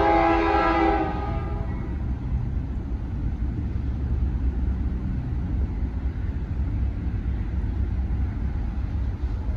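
Locomotive air horn sounding a multi-note chord that cuts off about a second in, followed by the steady low rumble of a moving train.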